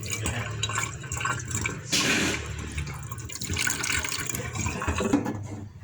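Water splashing and trickling, with a louder gush of pouring about two seconds in.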